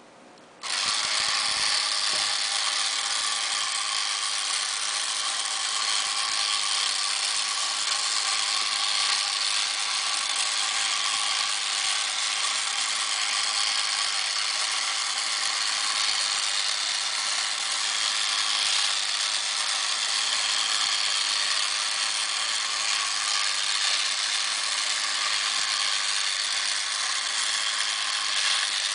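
Battery-powered walking robot toy's small motor and plastic gears whirring and ratcheting steadily as it walks. It starts suddenly just under a second in, when the toy is switched on.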